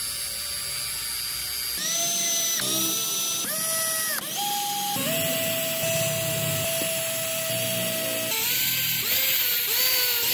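Cordless drill boring into a wooden wheel hub, its motor whining in a string of short runs that each spin up in pitch as the trigger is squeezed, with one longer steady run in the middle. The first couple of seconds hold a different, noisier tool sound.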